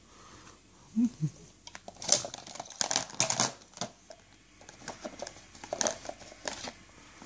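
Plastic toys clattering and crinkling as a baby handles a toy basket, in irregular bursts of clicks and rattles, busiest from about two to four seconds in and again near the end. Two short baby grunts about a second in.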